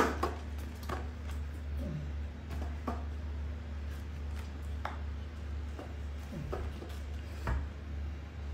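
Light knocks and taps from a baby monkey clambering on a small metal-framed child's chair with a plastic seat: one sharp knock right at the start, then scattered taps about every second or two, over a steady low hum.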